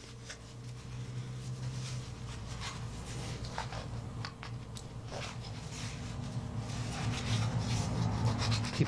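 Hands and a cloth shop rag rubbing and gripping a steel Weihrauch HW95 air-rifle piston while its split piston liner is worked out. Faint scrapes and small clicks sit over a steady low hum.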